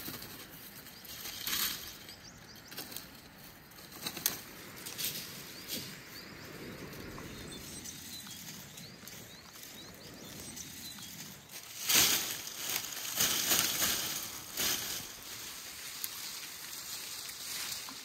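Dry branches and dead leaves rustling and snapping as brushwood is gathered by hand, with scattered sharp cracks and a louder stretch of crackling about two-thirds of the way through.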